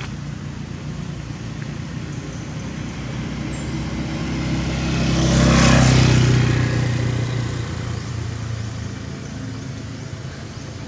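A motor vehicle passing by: engine and tyre noise swell to their loudest about halfway through, then fade, over a steady low background rumble.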